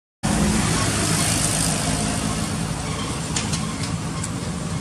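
Steady low outdoor rumble with a hum, like a nearby engine running, beginning after a split-second of silence; a few faint clicks come in the second half.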